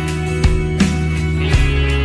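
Background music: sustained chords with a couple of sharp drum hits.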